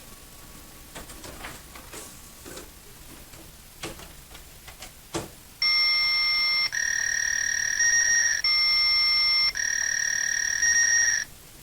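Fax machine sound effect: a few soft clicks, then loud electronic handshake tones that switch back and forth between two patterns about once a second, stopping abruptly near the end.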